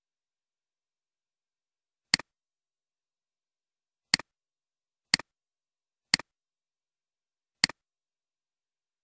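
Computer mouse button clicked five times, each click a quick press-and-release double tick: two clicks two seconds apart, then two a second apart, then one more about a second and a half later.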